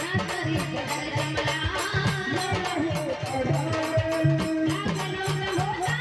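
Marathi devotional folk music with a steady rhythmic beat of low drum-like strokes and a rattling shaker under a held melodic line.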